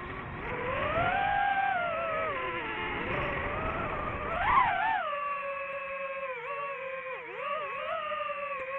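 FPV drone motors and propellers whining, the pitch rising and falling with the throttle, over a rush of wind. The wind drops away about halfway through, leaving a steadier whine with a few quick dips.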